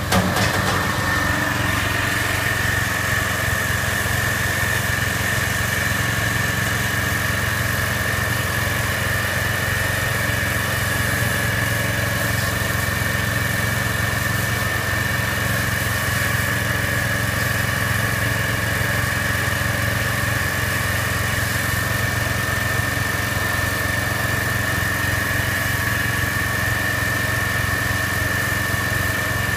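Engine-driven pressure washer running steadily, with a low hum and a steady high whine, its lance spraying water inside a plastic wheelie bin.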